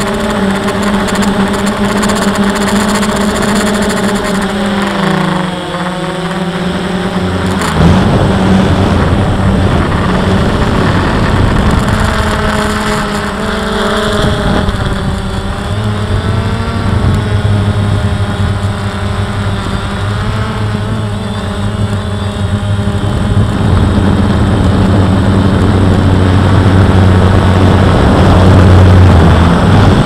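DJI Phantom quadcopter's motors and propellers humming steadily, heard through its own onboard camera, with wind noise on the microphone. The pitch dips about five seconds in and wavers as the motors adjust, a deeper hum joins at about eight seconds, and the sound grows louder towards the end.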